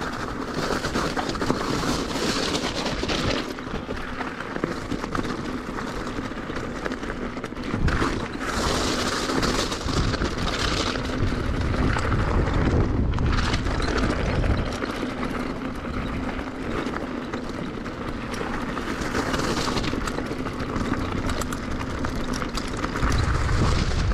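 Mountain bike rattling over a rough stony trail, its tyres crunching on loose rock. Gusts of wind buffet the camera microphone several times.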